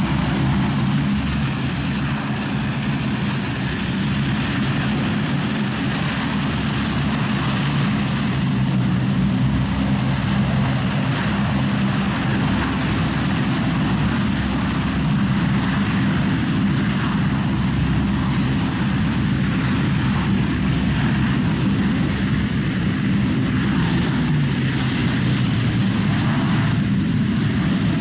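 The four Allison T56 turboprop engines of a Lockheed C-130H Hercules running steadily on the ground. They make a constant propeller drone with a low hum of several steady tones underneath.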